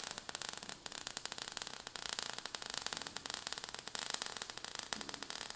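Faint sparks sound effect: a dense, fast crackling over a steady hiss.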